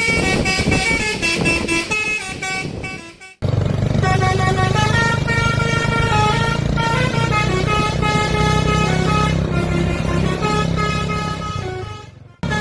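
Bus 'basuri' musical horn (telolet) playing a tune of stepping notes. The first tune fades out about three seconds in, then a second horn tune starts over a steady low hum and cuts off abruptly near the end.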